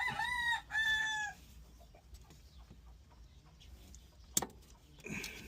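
A rooster crowing: two drawn-out pitched notes in the first second or so. A sharp click follows about four seconds in.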